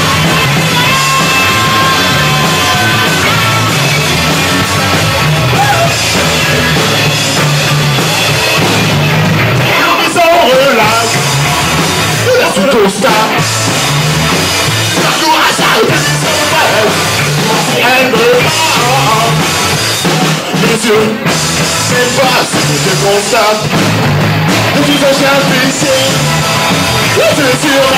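Live garage rock band playing loud: drum kit, electric guitars and keyboard, without sung words. A lead line bends up and down in pitch from about ten seconds in.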